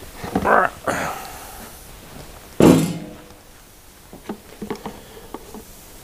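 Motorcycle parts being handled during dismantling: a few knocks and rattles, a louder thunk about two and a half seconds in, then light clicks.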